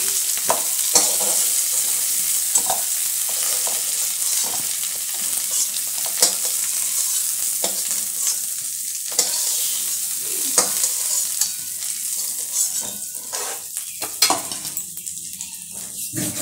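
Fried taro pieces sizzling in hot oil in a metal kadai as a spatula scoops them out, scraping and knocking against the pan. The sizzle thins out near the end as the pan empties.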